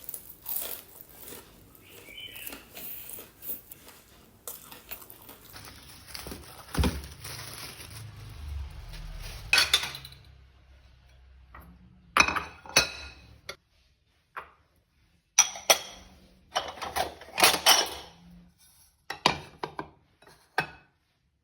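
Dishes and cutlery clinking and knocking in irregular clusters of short sharp strikes, broken by a brief near-silent gap past the middle.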